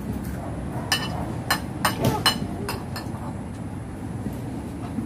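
Spoons and other utensils clinking against plates and food containers, about six sharp clicks in the first three seconds, over a steady low rumble.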